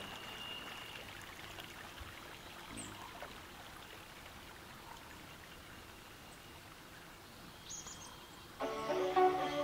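Faint, steady rush of flowing river water. Music comes in near the end.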